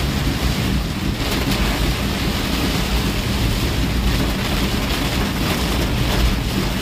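Heavy rain pounding on a moving bus, heard from inside the cabin as a steady hiss, over the low, steady hum of the bus engine and the rush of wet road noise.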